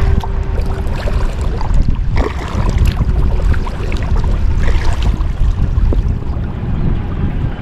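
Kayak under way: small, irregular water splashes and drips from the paddling over a loud low rumble of wind buffeting the microphone.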